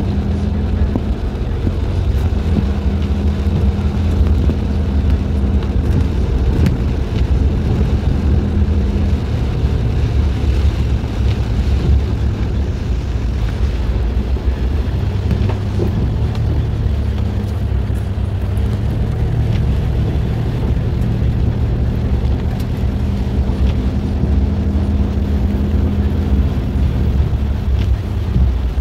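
Car engine running steadily, heard from inside the cabin as a low hum whose pitch shifts a little now and then.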